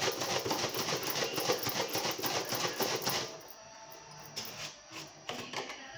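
Soapy water sloshing in a capped plastic milk bottle shaken hard and fast, a rapid rhythmic splashing that stops about three seconds in.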